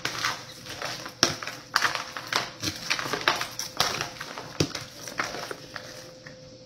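Fork tossing lettuce salad in a plastic container: crisp leaves rustling and crunching, with irregular sharp clicks as the fork knocks against the plastic.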